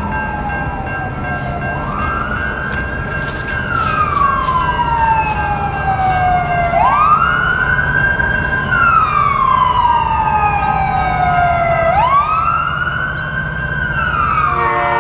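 Emergency vehicle siren wailing: the pitch rises quickly, holds, then slides down slowly, repeating about every five seconds.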